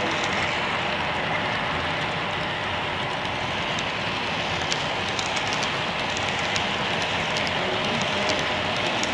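HO scale double-stack container cars rolling past on model track: a steady hiss of small metal wheels on the rails, with scattered light clicks as the wheels cross rail joints and turnouts.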